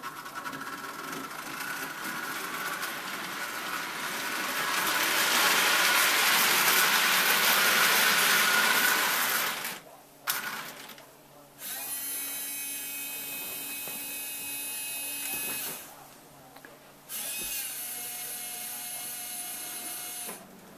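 Marx toy train running on the track, its rumble growing louder as it comes close, then stopping about ten seconds in. After that the crane's small electric motors run with a steady whine, twice, for about four seconds and then about three seconds.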